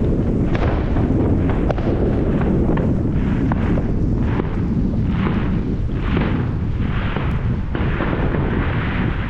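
Firework going off: a continuous low rumbling roar shot through with sharp crackles, with hissing swells recurring about once a second in the second half.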